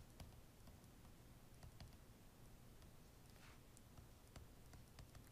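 Near silence with faint, scattered light clicks of a stylus tapping on a writing tablet as words are handwritten.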